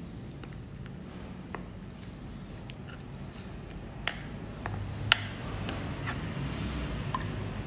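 Spoon stirring tapioca starch into coconut milk in a small glass bowl: soft wet squishing and scraping, with a few light clicks of the spoon against the glass, the sharpest about four and five seconds in, over a low steady hum.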